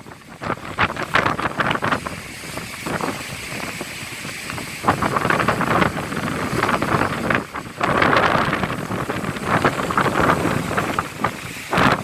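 Storm-force wind buffeting the microphone over heavy surf from a stormy sea, gusting harder from about halfway through.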